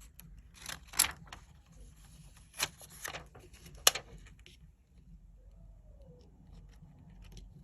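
Small sharp clicks, taps and rustles from hands and tools handling a phone during a repair. The loudest clicks come about a second in, near the middle and just before four seconds, followed by fainter scattered ticks.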